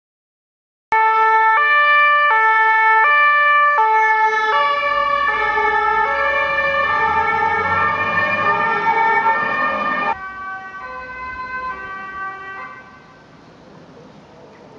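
Two-tone emergency-vehicle siren starting suddenly about a second in, alternating between a high and a low pitch roughly every 0.7 s. Partway through a second overlapping two-tone pattern and low engine noise join it as the vehicle passes; about two-thirds of the way in the sound drops sharply to a fainter siren, which fades to quiet street noise near the end.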